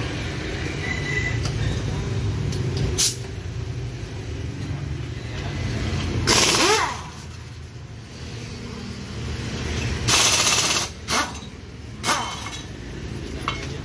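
A compressed-air tool working on a scooter's rear wheel at a tyre shop: five sudden hissing bursts, two of them loud and nearly a second long, over a steady low rumble of passing motorbike traffic.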